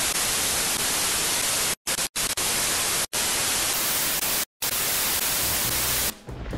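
TV static hiss, a flat steady white-noise rush played as a lost-signal effect over colour bars. It cuts out abruptly four times for a split second and stops about six seconds in.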